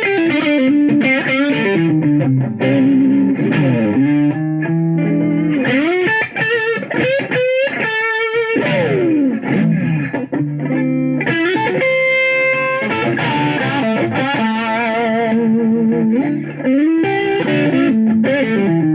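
Electric guitar played through a Roland GR-D V-Guitar distortion unit: bluesy overdriven lead lines with string bends and vibrato, plus some chords.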